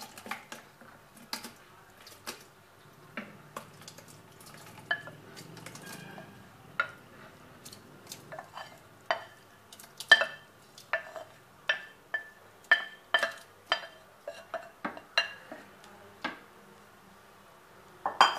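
A glass bowl and a wooden spoon knocking and clinking against a large glass jar as crushed black grapes are tipped and scraped into it. The knocks are many and short, with a brief glassy ring, and come thickest in the second half.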